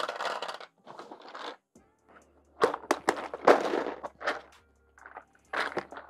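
Irregular rustling and clattering handling noises in several short bursts, like parts being rummaged through. A low steady hum starts about two seconds in.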